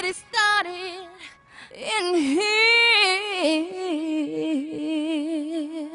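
A woman's voice singing alone with no beat behind it, in long runs that bend and waver in pitch, with a short break about a second and a half in.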